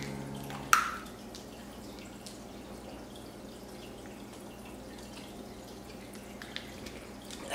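Plastic bottle of sports drink opened with a sharp click about a second in, then faint sips and swallows of liquid over a low steady hiss.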